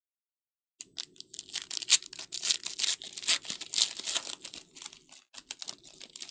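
Foil wrapper of a Panini Recon basketball card pack being torn open and crinkled by hand: a dense run of crackling rustles that starts about a second in, with a short pause near the end.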